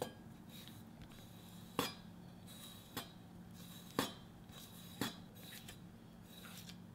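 Kitchen knife scoring a squid body on a wooden board: a short knock of the blade against the board with each stroke, five in all, about one a second. A faint steady hum lies underneath.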